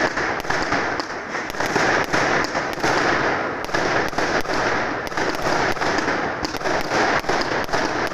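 Dense New Year's fireworks going off all around: a continuous crackle of many rapid bangs and pops, several a second, over a steady rumbling haze of distant explosions.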